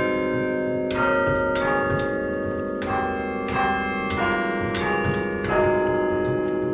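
A chime of thirteen church bells cast by John Taylor & Co in 1939, being chimed: single strokes one after another at different pitches, about one every two-thirds of a second, each note ringing on under the next.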